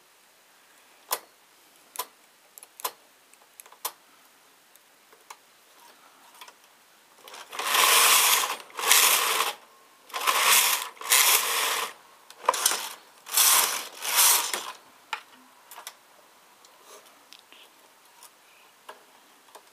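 Domestic knitting machine carriage pushed back and forth across the metal needle bed: a series of quick rattling sweeps, about seven passes close together from about seven seconds in to about fifteen seconds in. Before and after, scattered light clicks as a hand transfer tool moves stitches on the needles.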